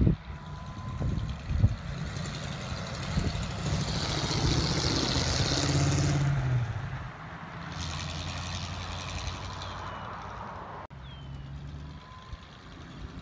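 1934 Ford coupe driving past, its engine running steadily with tyre and engine noise swelling as it passes closest, about five to six seconds in, then fading. After an abrupt cut, its engine is heard more faintly as the car approaches from a distance.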